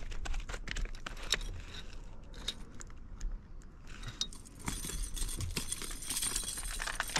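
Light metallic clicks and jingling of fishing tackle being handled, then a denser rustling hiss with clicks for the last couple of seconds.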